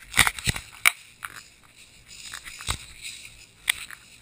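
Irregular crunching and crackling of footsteps and brush rubbing against a body-worn camera while walking through dense vegetation, with a cluster of sharp cracks in the first second and single louder ones later.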